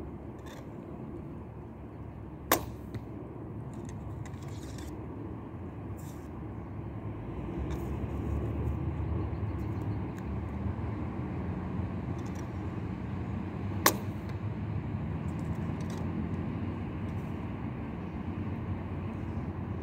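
Daylite Monarq Korean bow (48-inch, 45 lb) shot twice with a thumb release: two sharp bowstring snaps as the arrows leave, about eleven seconds apart. A steady low rumble runs underneath.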